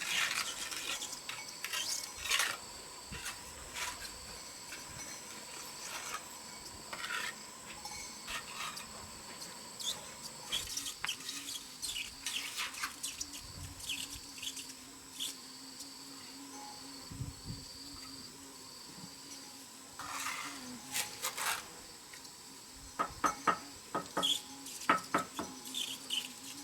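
Irregular scraping and clinking of hard objects, like a tool worked against brick or cement, over a steady high insect drone. The clinks come thicker near the end.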